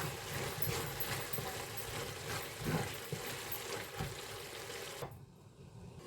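A spatula stirring cluster bean sabji in a pan, with a few light knocks and scrapes against the pan over the sizzle of the cooking. The sound drops off suddenly about five seconds in.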